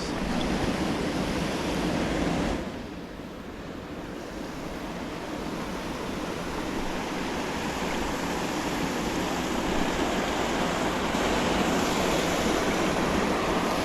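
Steady rushing water of a creek waterfall. It drops sharply in level a few seconds in, then grows gradually louder.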